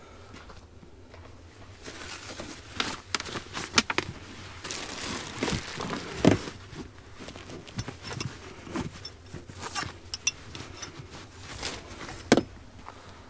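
Someone rummaging through gear in a car's open hatchback cargo area, looking for more tent stakes: irregular rustling and crinkling with scattered clicks and knocks, and two sharp knocks standing out, one about six seconds in and one near the end.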